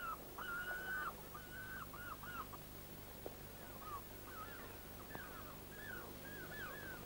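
Gulls calling over the harbour in a string of short arched cries, one after another, the first one longer. Faint steady hum underneath.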